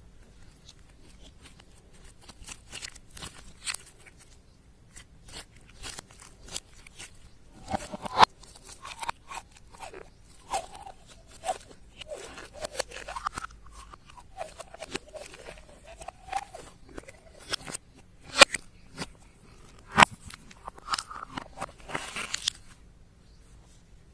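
Slime being kneaded and stretched by hand: fast sticky clicks and crackles, with wet squelches in the middle and again near the end.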